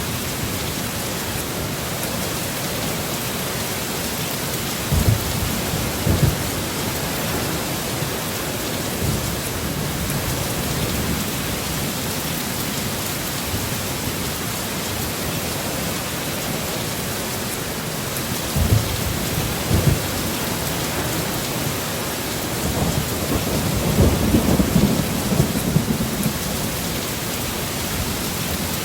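Steady rain of a thunderstorm, with low thunder: short booms at about 5 and 6 seconds and again near 19 and 20, then a longer rumble from about 23 to 26 seconds.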